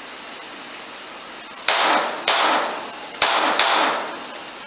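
Four gunshots from a short AR-style rifle, in two quick pairs about a second apart, each a sharp crack trailing off briefly.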